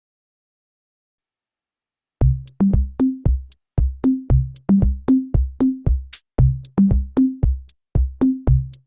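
Silence for about two seconds, then an electronic background music track starts: a drum-machine beat with deep kick drums, short bass notes stepping between a few pitches, and sharp clicky hits.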